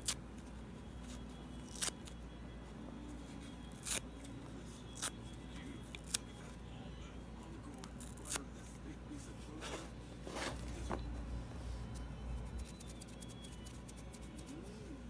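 Foam sponge being torn apart by hand: sharp ripping snaps every second or two, with a quicker run of them about two-thirds of the way in. Near the end there is a fine crackling as fingers brush over a pile of torn sponge pieces.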